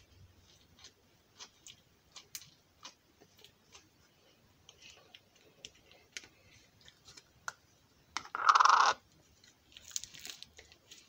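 Small plastic slime containers being handled: light clicks and taps of plastic, with one loud rough noise lasting just under a second about eight seconds in.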